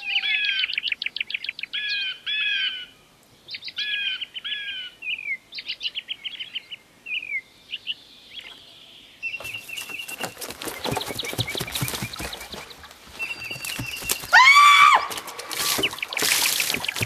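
Small birds chirping in short, quickly repeated notes. About halfway through, a run of dense crackling clicks takes over, with a loud, short cry about three-quarters of the way in. Near the end comes a big splash of water as a person jumps into a wooden hot tub.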